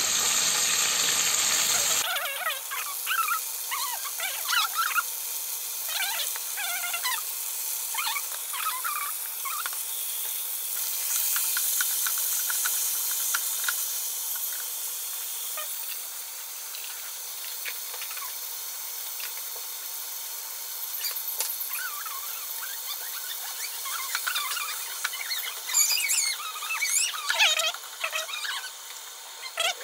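Birds chirping and twittering in short, quick calls over a steady hiss, with the calls busiest near the end.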